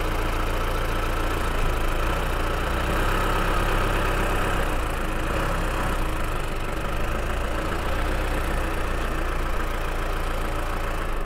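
Mahindra Bolero pickup's diesel engine idling steadily.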